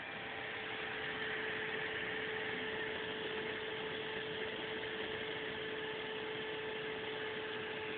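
Prusa Mendel i2 3D printer's Y-axis stepper motor running at a steady speed with a steady whine, stopping near the end. Under it, a constant hiss.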